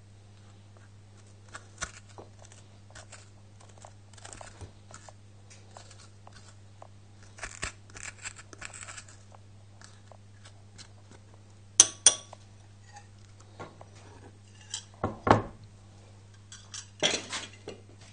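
Metal spoon scraping seeds and pulp out of a halved butternut squash, with sharper clinks of the spoon against a glass bowl. The loudest clinks come about twelve seconds in and again in a cluster near the end. A low steady hum runs underneath.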